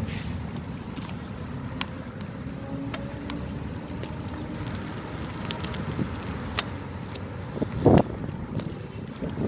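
Wind rumbling on the phone's microphone and a road bike's tyres rolling over packed dirt and grit, with scattered small clicks and rattles and a louder thump about eight seconds in.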